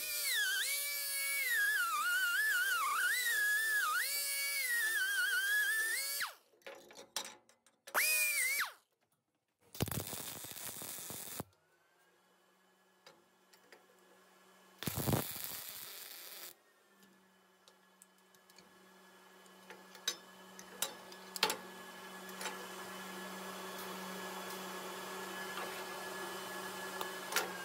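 Music for the first six seconds, then several short MIG welder tack welds on a cracked steel weldment, each a burst of arc noise lasting one to two seconds with pauses between. A steady low hum with a few clicks fills the last ten seconds.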